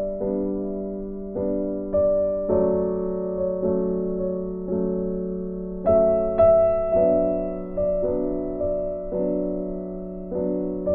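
Slow, gentle piano music: single notes and chords struck about every half second to a second, each left to ring and fade.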